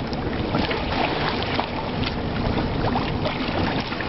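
Steady rushing noise of wind and water around a sailboat's deck and hull, with small clicks and taps scattered through it.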